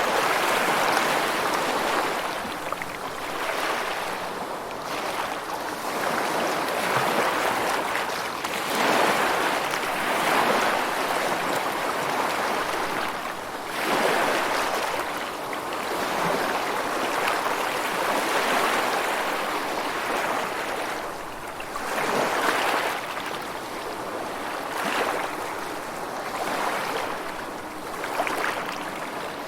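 Rushing water, a steady hiss that swells and eases every few seconds.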